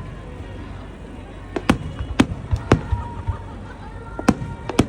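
Aerial fireworks bursting: about half a dozen sharp bangs at irregular intervals, a cluster in the middle and another near the end.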